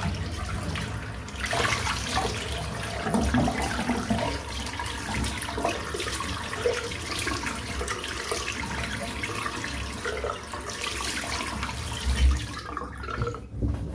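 Tap water running and splashing into a sink, as when rinsing off after a head shave; the water stops near the end.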